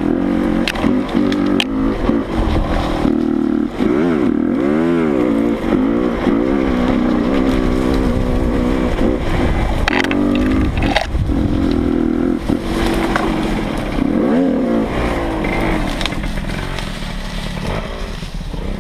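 Dirt bike engine running hard while being ridden. Its pitch drops and climbs back twice as the throttle is rolled off and on again.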